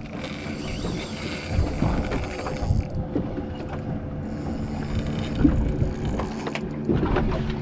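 Daiwa Caldia spinning reel being cranked against a heavy fish in two spells, the first about three seconds and the second about two, over a steady low engine hum.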